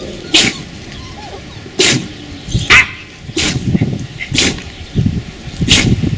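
Beagle puppy giving a string of short, sharp barks, roughly one a second.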